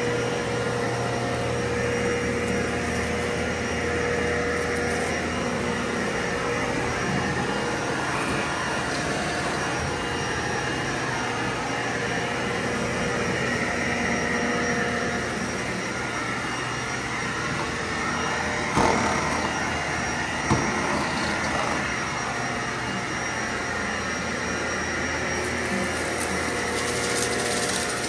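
Vacuum cleaner running steadily with a motor whine through slow passes. Two brief knocks come about two-thirds of the way through.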